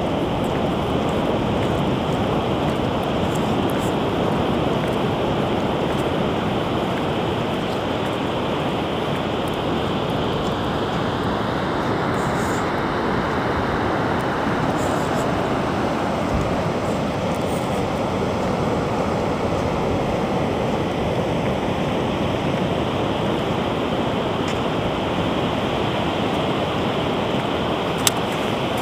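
Steady rush of ocean surf and wind on an open sandy beach, with a couple of clicks near the end.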